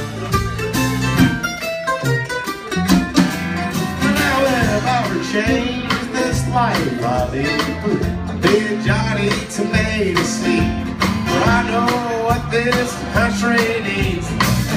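Live acoustic country band playing: strummed acoustic guitar and plucked upright bass under a lead melody line that bends in pitch.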